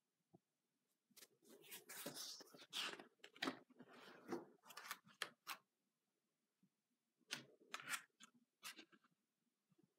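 Faint rustling and light knocks of a spiral-bound sketchbook's thick pages being turned and smoothed flat, in two spells with a short quiet gap between.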